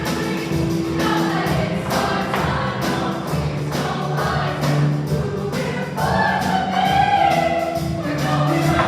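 School choir singing in parts over an accompaniment with a steady beat.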